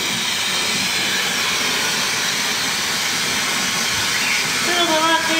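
Hair dryer blowing steadily.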